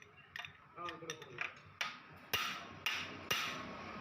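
Hammer blows on metal, coming in a steady rhythm of about two a second that starts a little before the halfway point.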